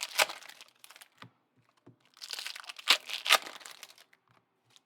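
Foil trading-card pack wrappers crinkling and tearing as packs are opened, in a short burst at the start and a longer one from about two seconds in.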